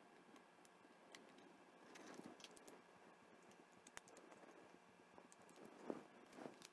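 Faint, scattered small clicks and taps from fingers handling a Zune's circuit board and ribbon cable during reassembly, with a few slightly louder ticks near the end; otherwise near silence.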